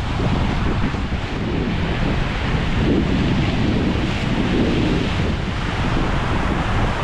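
Waves breaking and washing up on a sandy beach, mixed with wind buffeting the microphone, in a steady loud rush with swells about three and four and a half seconds in.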